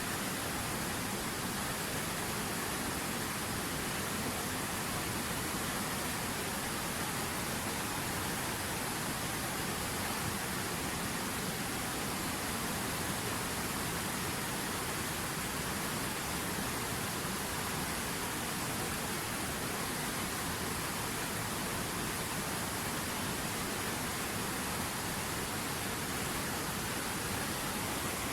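River water running, a steady even noise with no distinct splashes or changes.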